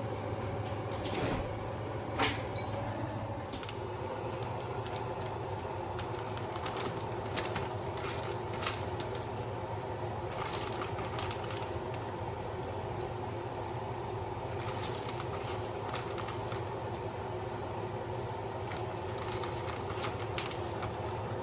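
Steady machine hum with scattered light clicks and taps.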